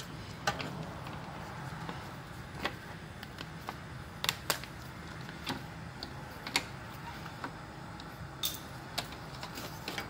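Irregular light clicks and taps of plastic car parts and a horn bracket being handled and fitted, over a steady low hum.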